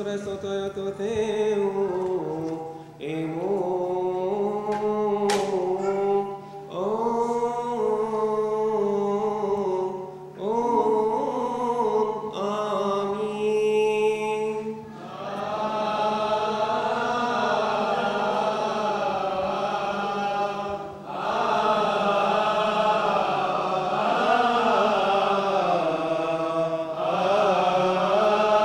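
Coptic Orthodox liturgical chant sung unaccompanied: long melismatic phrases with brief breaks between them, becoming a fuller, continuous sound of several voices from about halfway through. A steady low hum runs underneath.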